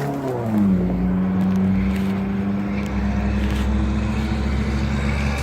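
Motor vehicle traffic: an engine note falls in pitch over the first second as a vehicle goes by, then a steady engine hum with a low rumble carries on.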